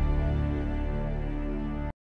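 Background music of sustained, held tones, easing down slowly and cutting off abruptly just before the end.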